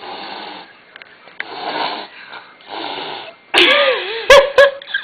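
Devon Rex cat hissing in three short bursts, then letting out a loud yowling growl that wavers in pitch near the end, with two sharp clicks. It is a defensive threat display at slippers that it takes for other cats.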